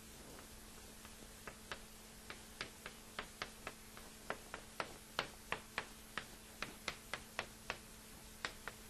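Chalk tapping and scraping on a blackboard while characters are written: a quick, irregular run of sharp taps, several a second, starting about a second and a half in.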